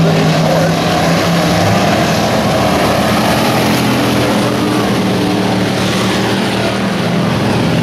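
Engines of dirt-track stock cars racing around the oval: a loud, steady drone of several overlapping engine notes, with the noise of the cars running at speed.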